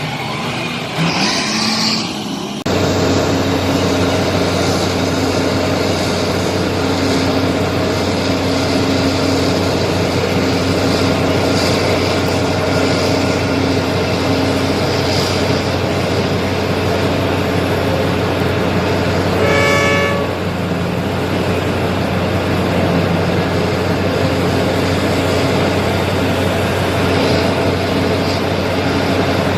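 Large diesel engines of a mining excavator and haul trucks running steadily under load, the drone stepping up suddenly about three seconds in. A short horn blast sounds about twenty seconds in.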